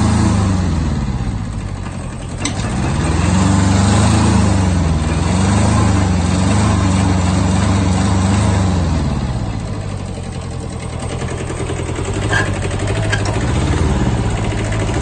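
Kubota Bultra B10 mini tractor's three-cylinder diesel engine running, its speed repeatedly falling and rising as the throttle is moved. It settles low for a few seconds and picks up again near the end.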